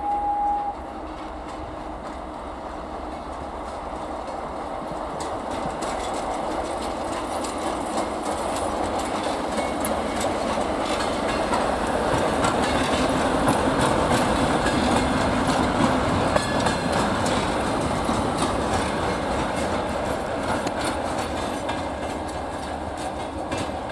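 ChME3 shunting diesel-electric locomotive hauling a single hopper wagon past: the diesel engine running and the wheels clattering over the rail joints, swelling to a peak around the middle and easing off toward the end. A brief steady tone sounds in the first second.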